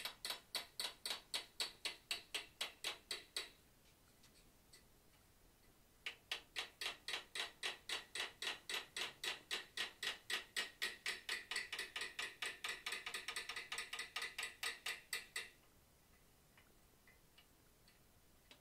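Hand hammer striking a side set held on the forged bear's head on the anvil: quick, light metallic blows at about four a second, in two runs with a pause of a couple of seconds between. The blows set the metal back on either side of the nose so the nose stands proud.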